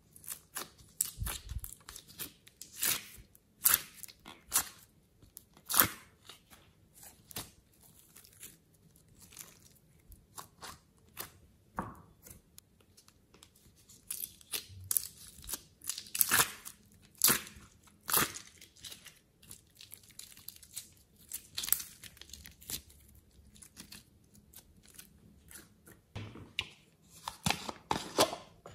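Fingertips pressing and poking soft, sticky clay in a plastic tub, giving irregular sticky crackles and pops. Near the end a plastic cap is pulled off a small tube.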